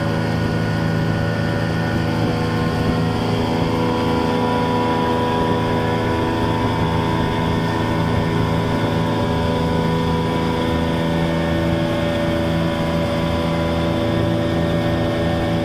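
Fishing boat's engine running steadily under way, a constant drone with water rushing along the wooden hull.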